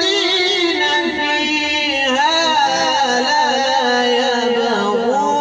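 A man reciting the Quran in the melodic tajweed style, holding long notes and ornamenting them with wavering slides in pitch.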